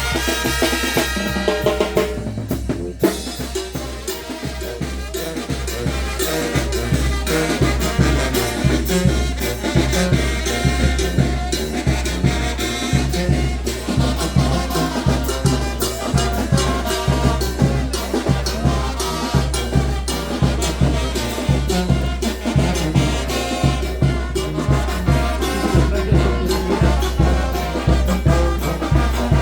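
Mexican banda, a brass band with drums, playing a lively piece with a steady, driving beat. After a short break about two seconds in, the brass and drums come back in.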